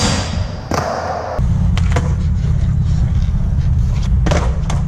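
Skateboard tricks: a board grinding along a metal rail for about a second and a half, then sharp clacks of the board popping and landing, two of them close together near the end. A steady low rumble runs underneath.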